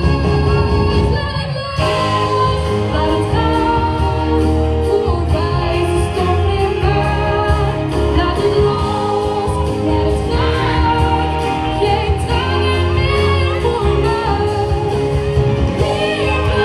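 A woman singing a pop song live into a microphone over amplified music with a heavy bass, the music dipping briefly just before two seconds in.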